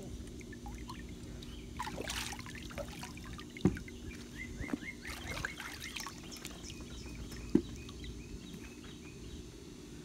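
Pool water trickling and splashing over a steady low hum, with small scattered splashes and two sharp knocks, about 4 seconds apart.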